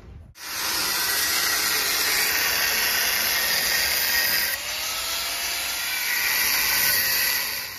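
Handheld electric angle grinder working the steel chassis rail of a truck at a crack, with a steady, loud, high grinding hiss. It starts suddenly, drops a little about halfway through, and carries on.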